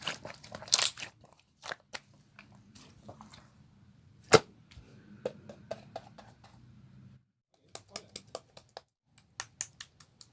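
Clear slime being handled: a series of sticky clicks and crackling pops as it is pressed and stretched, with one sharp, louder pop about four seconds in.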